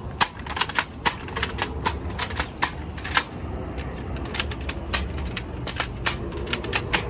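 Toy gun being fired over and over: a fast, irregular run of sharp clicks from its mechanism, about three to four a second.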